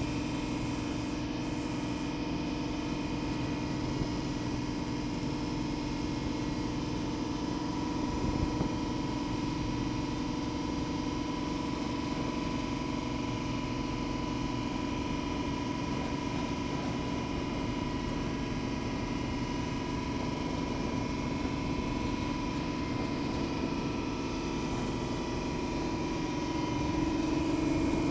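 Riverboat's engine running steadily under way, a constant drone with a steady hum, a little louder near the end.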